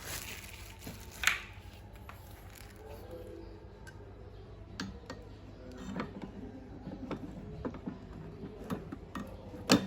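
Scattered light clicks and knocks of objects being handled, with a sharper click about a second in and a loud knock near the end.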